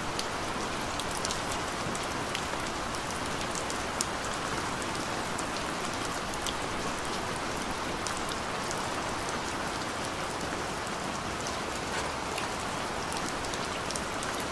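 Steady rain with scattered drop ticks, used as the masking track over which subliminal affirmations are laid.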